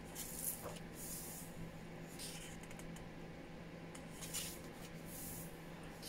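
Thick glossy pages of a bird-plate book being turned by hand: a few short, soft paper rustles and swishes, over a faint steady low hum.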